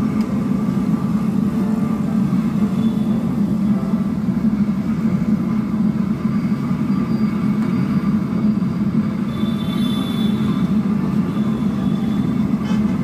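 Banana chips deep-frying in a large iron kadhai of hot oil over a burner: a steady, loud, low bubbling noise.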